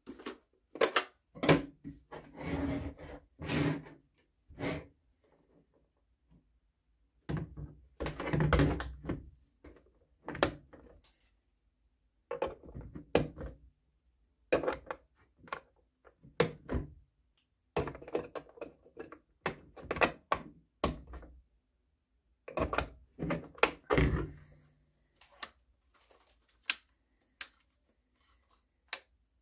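Irregular clicks, knocks and rattles of plastic hobby-electronics gear being handled on a tabletop: an RC transmitter and an AA battery holder moved and set down, and wire connectors plugged together.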